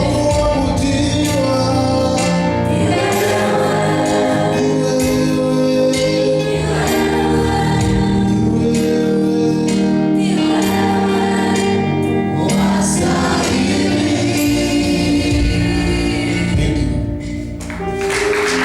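A choir singing a gospel song in several voice parts over low instrumental accompaniment, dipping briefly near the end before a final held chord.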